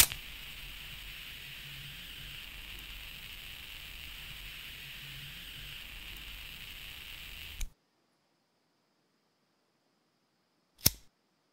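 Flint-wheel butane lighter struck with a sharp click, then its gas flame hissing steadily for about seven and a half seconds, cut off with a click as the lever is let go. One more sharp click comes about three seconds later.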